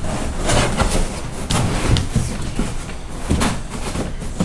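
A cut block of packing foam being pushed down into a cardboard box: foam rubbing and scraping against the cardboard, with several dull knocks.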